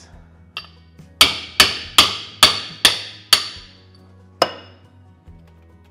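Hammer blows driving a shortened BMW differential output flange home into the differential so that it locks in. A light tap, then six quick blows with a metallic ring, about two to three a second, and one last blow about a second later.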